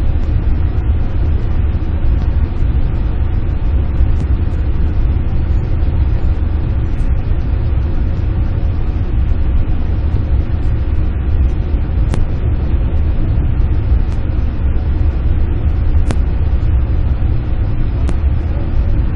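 Steady low rumble of a double-deck Max Shinkansen train running, heard from inside the passenger cabin, just after pulling out of a station. A few faint, sharp clicks sound now and then over the rumble.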